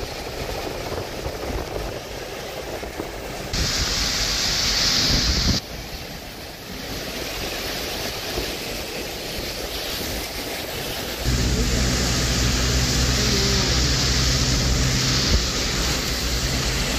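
Steady hiss of rain and tyres on wet roads, with wind on the microphone. The sound jumps abruptly in level several times. About two-thirds of the way in, a low, steady vehicle engine hum joins it.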